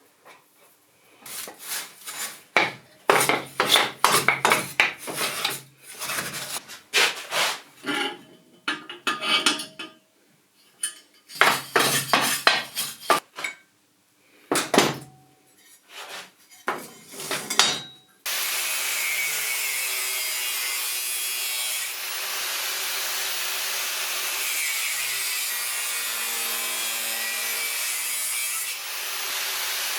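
Uneven rasping strokes on wood, like hand sawing or filing. About 18 seconds in, a motor-driven tool starts abruptly and runs steadily with a loud grinding hiss.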